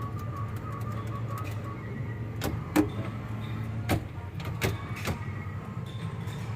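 Steady low hum of a car, with several sharp clicks over the middle of the stretch.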